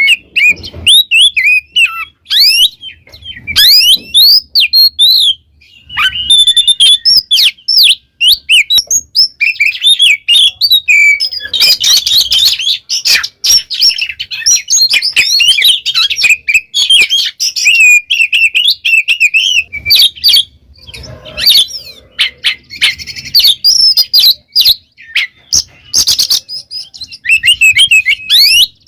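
Oriental magpie-robin singing loud and nearly without pause: rapid, varied whistled phrases of quick up-and-down sweeps and chattering notes. This is the full, energetic song that keepers call gacor.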